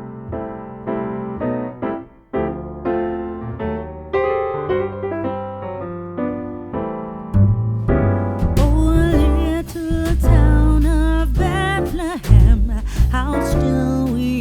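Background music: a keyboard melody played note by note, with a bass line and a singing voice joining about halfway through.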